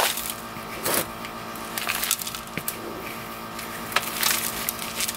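Potting soil being scooped by hand from a plastic bucket and dropped into a foam cup: several short crunching rustles and scrapes.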